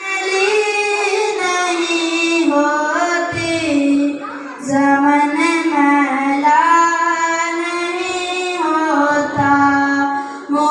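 A boy singing solo into a handheld microphone: a slow melody with long held notes and short pauses for breath.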